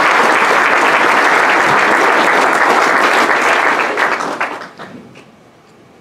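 Audience applauding, dense and steady, then dying away quickly about four and a half seconds in, leaving a few last scattered claps.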